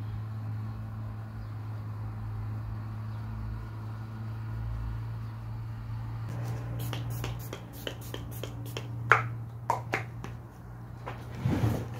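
Light clicks and taps from makeup being handled and applied with a brush, a run of them from about six seconds in and a few sharper taps near the end, over a steady low hum.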